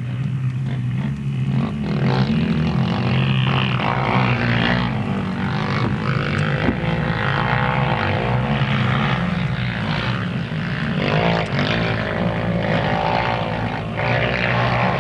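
Racing quad (ATV) engines running hard as riders pass along a harescramble course, the pitch rising and falling with the throttle; one engine's tone comes through more strongly about eleven seconds in.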